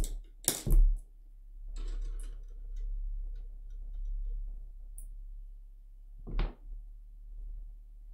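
Handling noises on a tabletop: a few knocks and clicks as a silicone mold and a thin metal tool are handled. The loudest come in a quick cluster at the start, with another about six seconds in, over a low steady hum.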